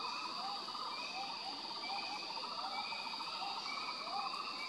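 Tropical forest animal chorus: a steady high insect drone, with a short rising-and-falling call repeated evenly a little faster than once a second.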